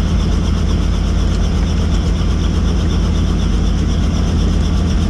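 Helicopter running: steady loud rotor and turbine noise with a fast, even beat from the blades.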